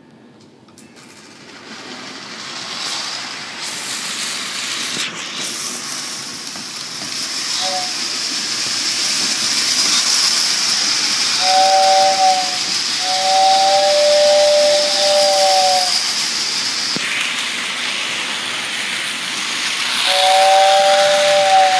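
Postwar Lionel 2026 O-gauge toy steam locomotive getting under way and running around tinplate track, a steady rushing noise that builds from about two seconds in. Its tender's two-tone whistle blows a brief toot about eight seconds in, two longer blows between about twelve and sixteen seconds, and another near the end.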